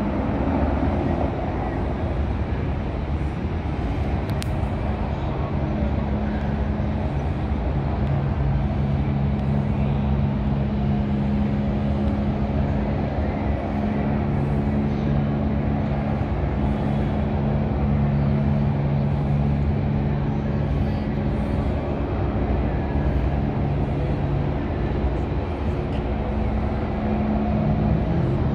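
Steady low drone of low-flying helicopters, mixed with road traffic noise.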